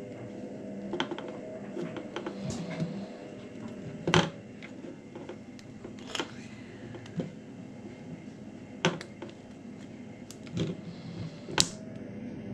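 Irregular sharp clicks and taps of fingers and fingernails on the plastic body of a small dash cam as its protective screen film is picked at to peel it off. The loudest clicks come about four seconds in and near the end.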